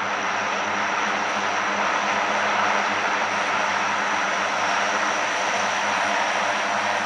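Royal Australian Air Force C-130J Hercules turboprop engines running as it taxis, with six-bladed propellers turning. It is a loud, steady whine with a high tone above a low propeller drone.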